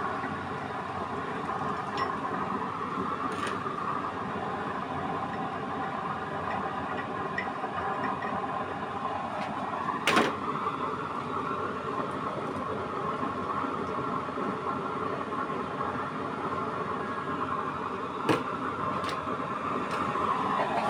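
Homemade nozzle-less waste-oil stove burning with its electric blower fan running: a steady whirring roar. A sharp click comes about halfway through and another near the end.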